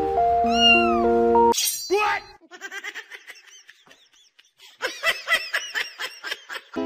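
Cat meowing: a falling meow about a second and a half in, then scattered short calls, and near the end a quick run of short, high mews, several a second. A snatch of music plays at the start.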